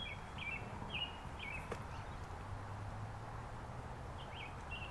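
Birds calling in short, repeated high chirps at the start and again near the end, with a single sharp click in between over quiet outdoor ambience.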